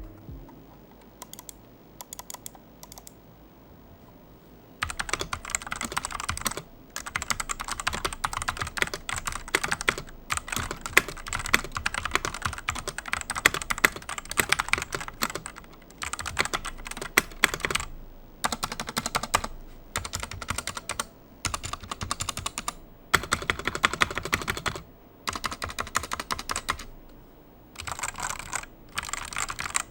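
Typing on a DailyTech YK600 60% mechanical keyboard with Otemu Red linear switches and unlubed stock switches and stabilizers. A few scattered keystrokes first, then from about five seconds in fast continuous typing in runs broken by short pauses.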